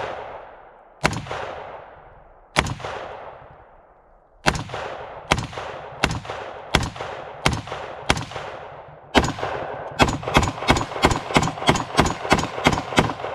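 AR-15 with a Bear Creek Arsenal .223 Wylde upper firing semi-automatic. Single shots come a second or more apart at first, then speed up to about four a second near the end, each shot trailing off in an echo. Every round goes off with no misfire: the rifle is cycling reliably on its heavier buffer and buffer spring.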